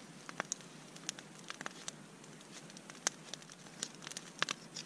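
Knife blade paring a small cedar-wood fork with light strokes: short, irregular scraping clicks, with a quick cluster of them near the end.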